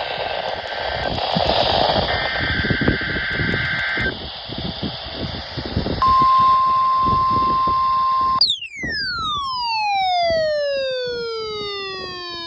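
NOAA Weather Radio weekly test through a portable weather radio's speaker: two short screeching data bursts, then about six seconds in the steady warning alarm tone for roughly two seconds. It is followed by a falling electronic tone with many overtones that starts over near the end. Footsteps thud underneath the first part.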